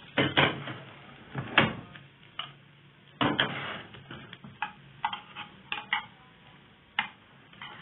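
Metal utensil knocking and scraping against a thin aluminium frying pan as fried bread rolls are turned and lifted out: a string of sharp clinks at uneven intervals, the loudest in the first two seconds and around three seconds in.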